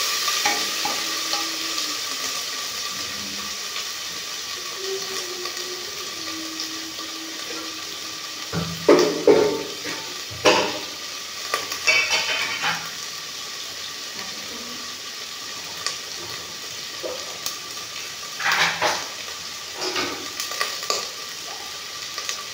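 Potatoes and sliced onions sizzling in hot oil in a pressure cooker, being lightly fried before the spices go in. The sizzle eases over the first few seconds. Sharp metal clatters against the pot come in two clusters, about nine to twelve seconds in and again about eighteen to twenty-one seconds in.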